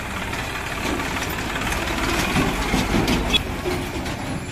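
Three-cylinder diesel engine of a New Holland 3230 tractor running as it drives close past with its trolley, getting louder between about two and three seconds in, over street traffic noise.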